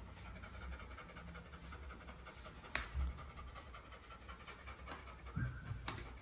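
Golden retriever panting softly, faint breaths repeating about one and a half times a second. A sharp click comes just under three seconds in and another near the end.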